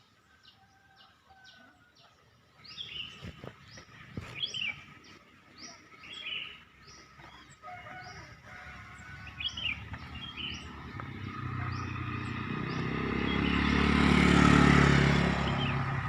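A bird chirping in short calls repeated at an even pace. From about ten seconds in, a motor vehicle approaches and grows louder. It is loudest about fourteen to fifteen seconds in, then begins to fade.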